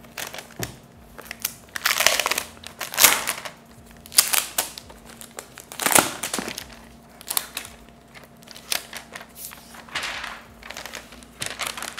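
Clear plastic protective wrap crinkling and rustling as it is peeled and pulled off a laptop, in irregular bursts every second or so.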